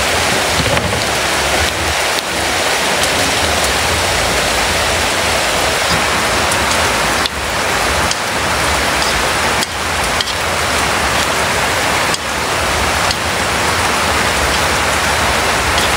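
Squid, bell peppers, onion and scallions sizzling in a hot wok as they are stir-fried: a steady, even hiss with a few faint clicks.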